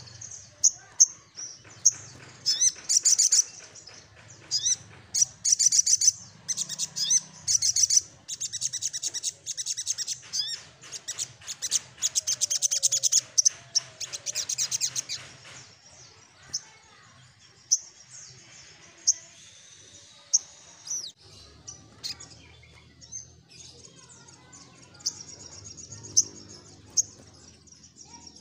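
Sogok ontong singing a loud, fast, high chattering song: rapid rolling runs of sharp chirps, the 'nyecret ngerol' song that keepers use as a lure. It runs in dense runs for the first half, then thins to scattered single chirps.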